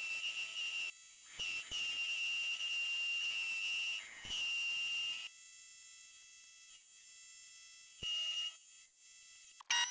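A homemade CNC lathe's motors giving a steady high-pitched whine that stops and restarts several times, with a quieter gap in the middle, as the machine is first run and tested.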